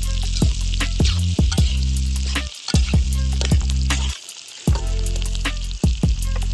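Cubed onions and capsicum sizzling in hot oil in a metal wok, stirred with a metal spatula that clicks against the pan.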